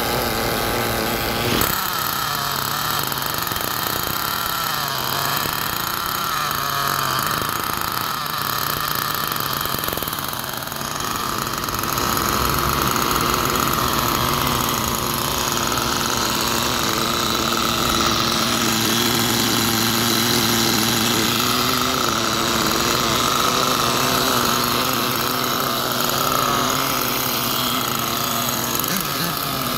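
Small glow-fuel engine of a VRX2 nitro RC monster truck idling steadily at a standstill during break-in, a continuous engine buzz that gets slightly louder about 12 seconds in.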